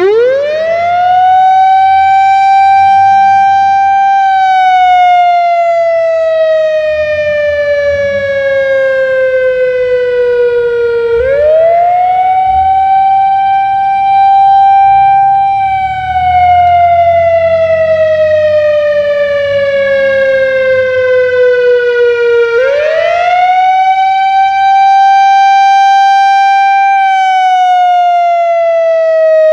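Whelen WS-3000 electronic outdoor warning siren starting up and sounding the wail tone on an analog controller. Each cycle the pitch rises quickly, holds, then slides slowly down, about every 11 seconds, three times.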